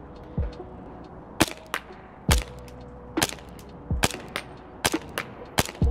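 Green-gas blowback Hi-Capa airsoft pistol (JAG Arms TTI Combat Master) fired in slow aimed single shots, about six sharp cracks roughly a second apart.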